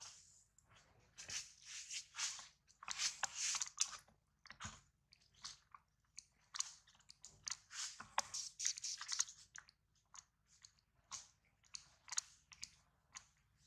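Baby macaque biting and chewing on a dry yellow leaf: irregular crunchy crackles and chewing noises in quick clusters, thickest around three to four seconds in and again around eight to nine seconds in.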